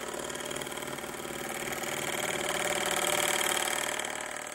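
Milling machine's 10 DP gear cutter cutting a tooth space in a 13-tooth metal gear blank: a steady cutting noise that builds as the cutter feeds into the blank, loudest past the middle, then drops off near the end as the cutter leaves the cut.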